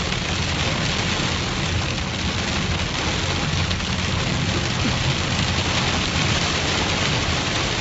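Heavy rain hitting a moving car, heard from inside, as a steady hiss over the low, even rumble of the engine and tyres on the wet road.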